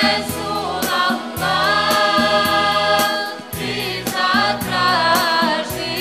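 Choir singing a Bosnian Islamic devotional song (ilahija), over a steady beat and low held accompaniment notes.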